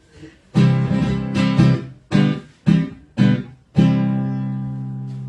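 Acoustic guitar strumming the introduction to a song: a run of sharp strummed chords starting about half a second in, then a final chord left to ring and slowly fade.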